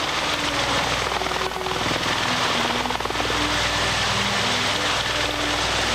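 Bell Boeing V-22 Osprey prototype tiltrotor in helicopter mode, hovering and moving slowly forward: its two proprotors and turboshaft engines make a steady drone with hiss over it.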